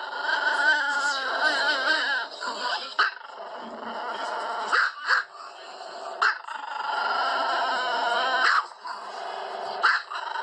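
Desi dogs whining, long calls with a wavering pitch, broken about six times by short sharp yips or barks.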